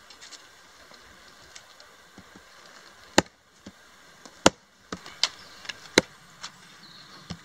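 Irregular sharp knocks, the three loudest about a second and a half apart, with softer ones between and after them.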